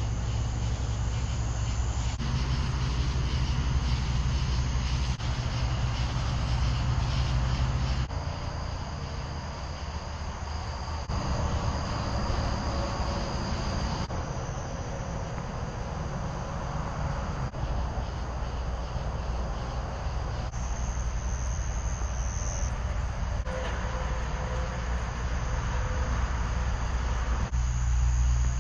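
Steady low road and engine rumble of a car driving at highway speed, broken into several short segments that change abruptly every few seconds. Insects chirp faintly in some segments.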